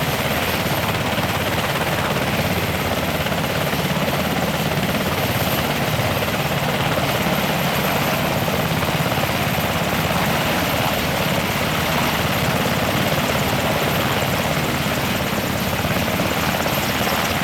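Military helicopter running steadily, a continuous rotor chop with a thin, steady high whistle over it.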